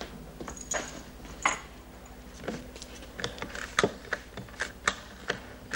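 A few footsteps of boot heels on a hard floor, then a run of irregular clicks and knocks as a telephone receiver is picked up and the phone is handled.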